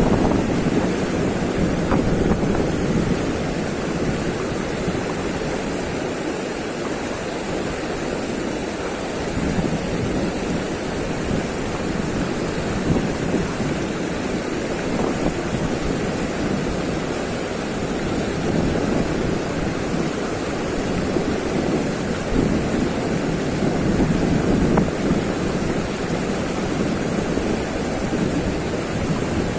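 Fast river current rushing and churning white just below a barrage, a steady water roar, with wind gusting on the microphone.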